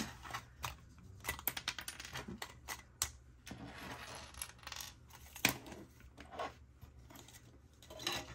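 Small hard plastic clicks and clinks from nail brushes in clear plastic tubes being handled and unpacked, with soft packaging rustles in between. There is a quick run of clicks in the first couple of seconds, a sharp click at about three seconds and a louder one midway.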